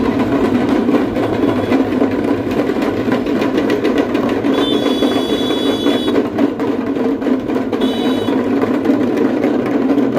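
Drums beaten in a fast, continuous roll. Two short high steady tones sound over it, about halfway through and again near the end.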